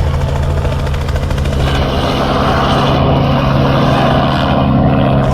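Helicopter running close by: a steady engine hum with a fast rotor chop, joined by a louder rush of rotor wash noise about two seconds in.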